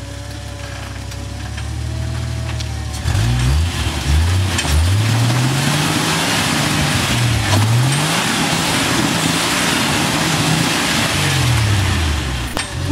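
Jeep engine idling, then revved up and down again and again from about three seconds in while it crawls over rocks, with a steady hiss underneath.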